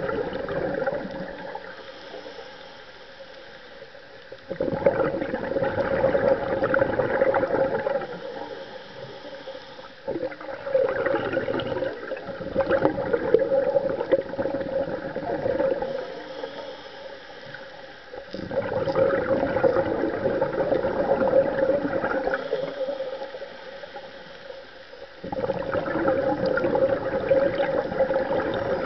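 Scuba diver's regulator breathing heard underwater: four bursts of exhaled bubbles, each lasting a few seconds and about seven seconds apart, with quieter inhalation gaps between them. A steady hum runs underneath.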